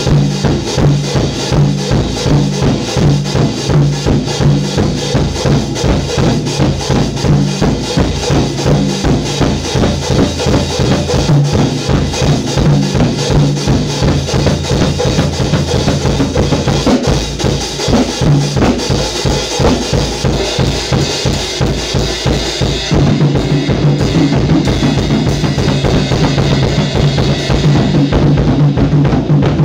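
Drum kit played in a fast, busy solo over a backing music track with a steady low bass note. About 23 seconds in it gets a little louder and denser.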